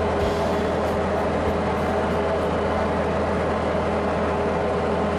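Diamond DA40's piston engine and propeller running at a steady cruise setting, a constant drone heard from inside the cockpit.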